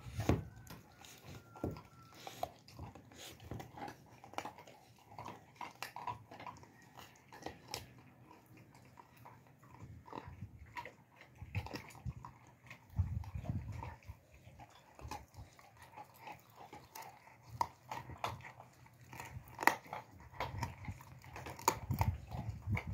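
Alabai (Central Asian Shepherd) puppy gnawing and chewing a piece of raw meat, with irregular wet clicks and crunches of its teeth, and a short low rumble about 13 seconds in.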